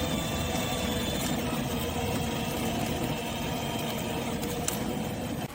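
Outfunny 24V 4WD kids' electric ride-on car running: a steady whine from its electric motors and gearbox over a low rumble. It drops off sharply near the end.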